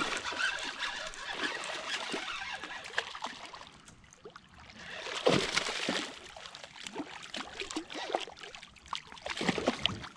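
Water splashing and trickling as a hooked fish thrashes and is lifted from the water, with a louder splash about five seconds in and small scattered clicks of handling.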